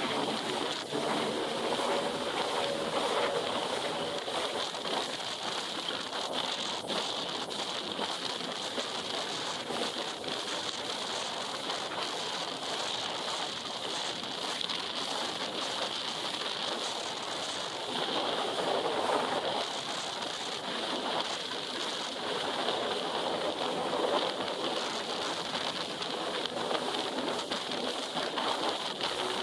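Jet ski underway, its engine and the rush of water around the hull making a steady, even noise.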